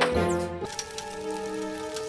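Cartoon background music: held notes, with a brief sweep at the start and a change to a new sustained chord about two-thirds of a second in.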